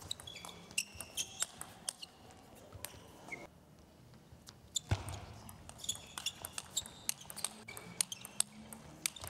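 Table tennis rallies: the plastic ball clicking in quick succession off the rubber-faced paddles and the table, with sneakers squeaking on the court floor. There is a short lull of about a second in the middle, between two points.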